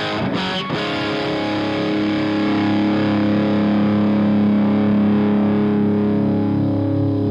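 Distorted electric guitar through an Omega Series Micro guitar amplifier: a few quick picked notes, then a chord struck about a second in and left to ring and sustain, with another chord near the end.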